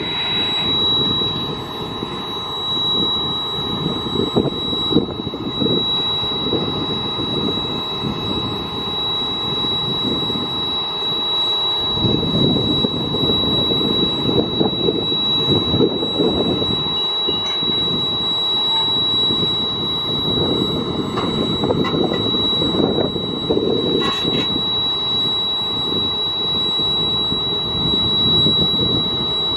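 Tractor engine running while the Kelly diamond harrow's second wing is lifted hydraulically, its heavy spiral disc chains and steel frame rattling and clanking as they come up, making a lot of noise about it.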